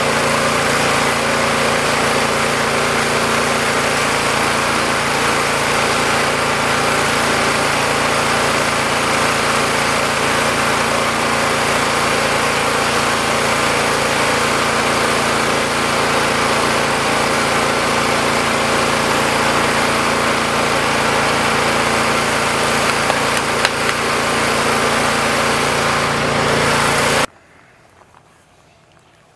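Small 6.5 hp engine running steadily and loudly, driving a portable chain-hammer rock crusher that is pulverizing quartz into powder. The sound cuts off suddenly near the end.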